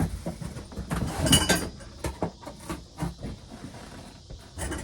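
Parts of an animatronic clown prop handled while being unpacked: scattered knocks and rustling, with a metallic clink about a second and a half in.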